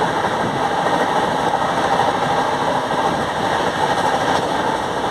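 Passenger train running at a steady pace: the continuous, unbroken noise of a carriage in motion.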